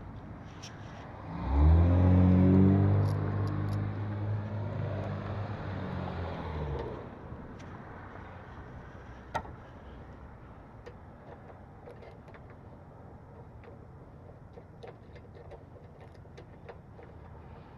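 A car's engine swells up about a second in, runs steadily for about five seconds and then fades away. After that only faint clicks and handling sounds remain.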